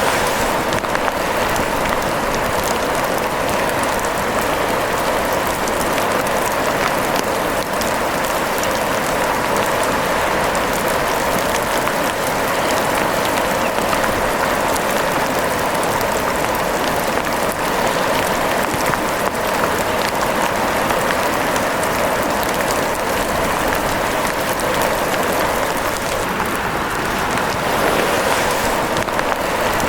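Steady rain: an even hiss of falling rain with a fine patter of drops, unchanging throughout.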